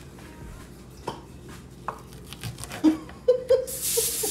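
Knife cutting smoked sausage on a wooden cutting board, a few sharp knocks of the blade on the board. Near the end a loud sizzling hiss starts up, food frying in hot oil in a pan.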